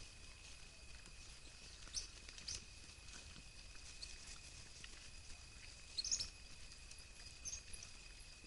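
A group of coatis foraging at a bait pile: scattered short, high chirps and rustles, the loudest about 2 seconds in and again around 6 seconds, over a steady faint high-pitched hum.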